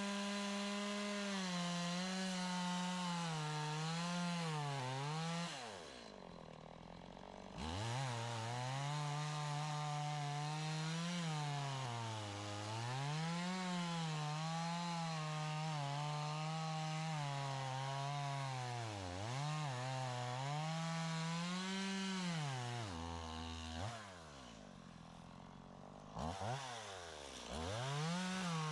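Chainsaw cutting through wood, its engine pitch sagging and picking back up as the chain bites. About six seconds in it drops to idle for a couple of seconds, then revs back up. Near the end it idles again and is blipped before revving up once more.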